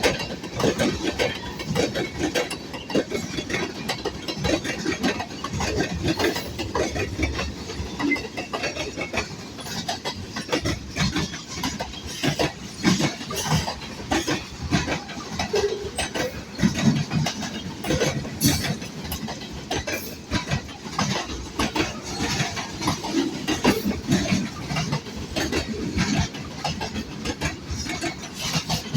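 Manifest freight train cars rolling past, their steel wheels clacking and clanking irregularly over the rails above a continuous low rumble.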